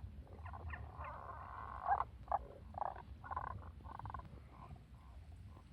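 Frogs croaking in a run of short pulsed calls, one longer call in the first two seconds and shorter calls after it, fading near the end, over a steady low rumble. The uploader takes them for Tago's brown frogs.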